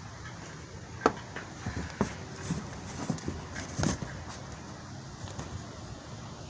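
Camera tripod being handled and adjusted: a run of sharp clicks and knocks over the first four seconds, the loudest about a second in and again near four seconds.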